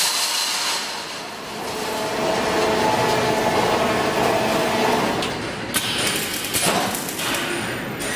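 High-speed wire mesh welding machine running, welding and pulling steel wire into fence mesh panels: a steady mechanical noise, with a few sharp clanks near the end.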